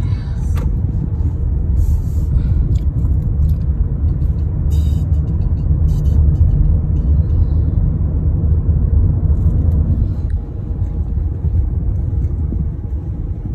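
Steady low rumble of a car driving in slow traffic, heard from inside the cabin, with a few light ticks.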